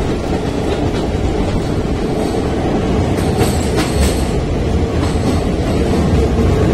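Train running through a tunnel, heard from aboard: a loud, steady rumble of wheels on rails, with a cluster of sharp clacks about halfway through.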